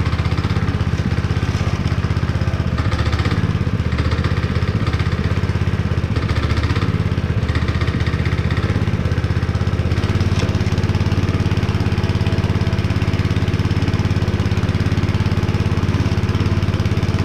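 Honda GX160 single-cylinder four-stroke engine on a concrete power trowel running at a steady speed, back in running order after years unused.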